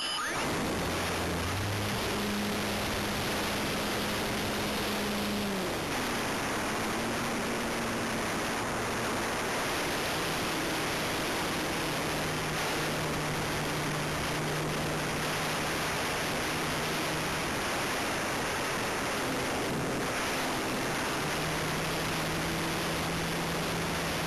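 Super Cub airplane's motor and propeller running in flight, heard through an onboard camera with loud steady wind rush over the microphone. Beneath the rush the motor's hum changes pitch several times as the throttle changes.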